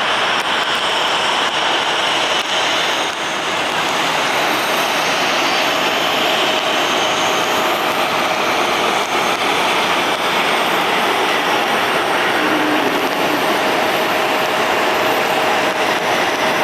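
Boeing 777-200ER jet engines on landing: a steady jet rush with a faint steady whine in the second half.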